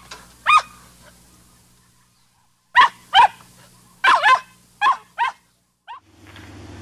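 A small dog yapping: one high yap about half a second in, then a quick run of about seven yaps from around three to six seconds in.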